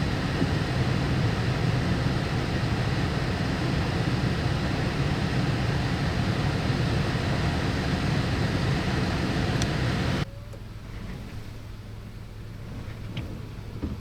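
Steady road and engine noise of a car driving, heard from inside the cabin. About ten seconds in it cuts off abruptly to a quieter steady low hum.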